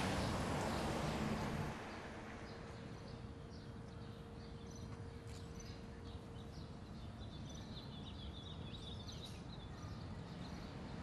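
Street ambience with passing traffic for the first couple of seconds. It then drops to quiet outdoor background with small birds chirping, many short high calls.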